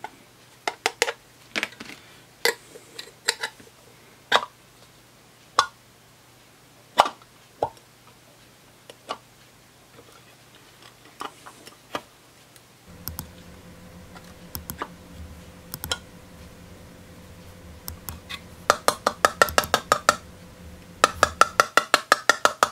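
Metal pry tool clicking and scraping against the rim and plastic diffuser lens of an LED downlight as the stuck, glued-in lens is worked loose: scattered sharp taps, then quick runs of rapid clicks near the end. A low steady hum comes in about halfway and stops shortly before the end.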